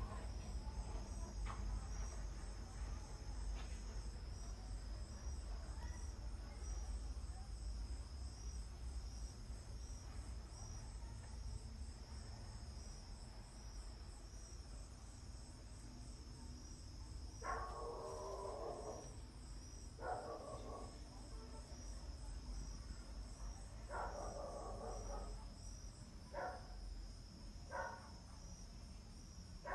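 Insects chirping steadily in a high, pulsing trill. In the second half, half a dozen short, louder, mid-pitched sounds of up to about a second each break in.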